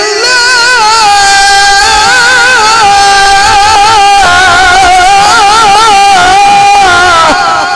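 Male Quran reciter chanting in the melodic mujawwad style, holding one long, loud phrase that his voice ornaments with rapid pitch turns. The phrase stops about seven seconds in and leaves a reverberant tail.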